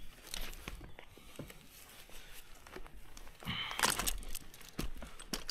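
Scattered clicks, scrapes and rustling as a tree climber shifts his boots and climbing gear against a dead cherry trunk, with a louder scraping rush about three and a half seconds in.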